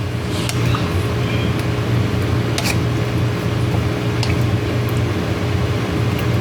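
Pot of pork mechado stew, pork with carrots and potatoes in tomato sauce, simmering with wet bubbling and a few sharp pops. A steady low hum runs underneath.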